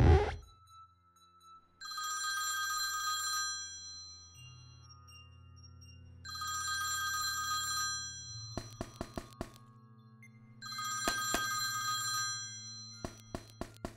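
Telephone ringing: three rings of about two seconds each, coming roughly every four and a half seconds, over a low sustained drone. Clusters of short, sharp clicks fall between the later rings.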